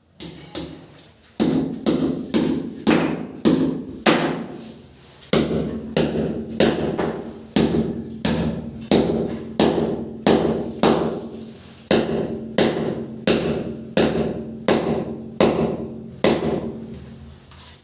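Steady hammer blows, about two a second, each ringing briefly, while the water heater is fitted.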